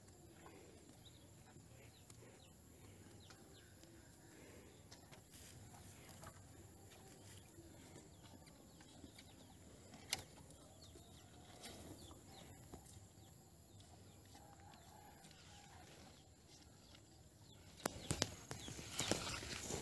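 Faint sounds of zebu cattle feeding on hay at a wooden trough, with a cluster of sharp knocks near the end.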